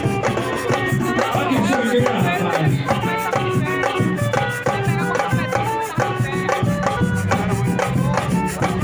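A live band playing during a sound check: short melodic notes over a steady low accompaniment, with a shaker's fast, even rattle running through it.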